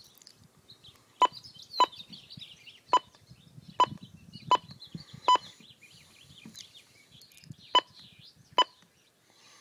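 Key-press beeps from an ICOM IC-706MkIIG transceiver as its buttons are pressed: eight short, identical single-pitch beeps at irregular intervals, two of them close together about five seconds in. Birds chirp faintly in the background.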